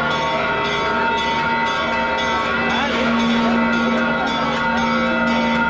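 Church bells ringing in rapid, continuous peals in celebration of the Holy Fire, with a crowd's voices underneath.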